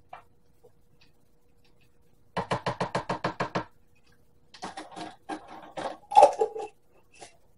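Plastic measuring spoon scraping inside a glass jar of minced garlic in a quick run of about ten strokes, then a metal lid clicked and screwed back onto the glass jar, with a loud knock near the end.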